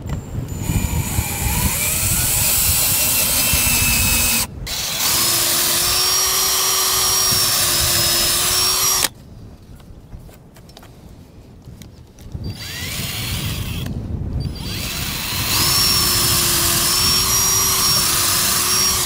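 Cordless drill boring holes into wooden hull planking, running at a steady whine in three long spells with a short stop and then a longer pause between them.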